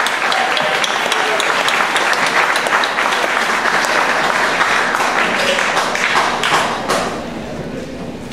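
Audience applause at a live concert: many hands clapping, dying down about seven seconds in.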